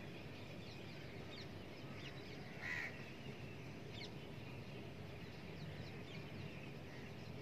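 Whiteboard marker writing, faint short squeaks over steady room hiss, with one brief louder sound a little under three seconds in.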